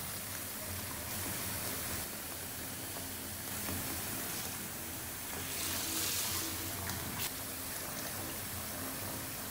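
Water running from a bathtub tap, pouring steadily into a filling tub.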